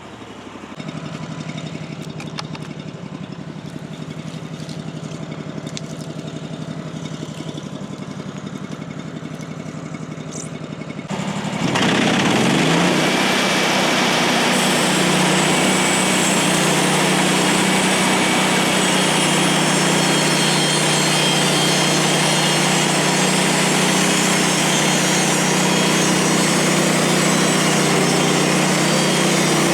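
Portable band sawmill's gas engine running at a low, steady speed, then throttled up about eleven seconds in, rising in pitch and getting much louder, and running steady at full speed to drive the band blade.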